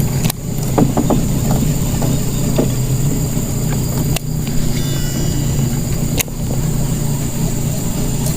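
Boat engine running steadily at a constant speed, a loud low hum, broken briefly by a few abrupt cuts.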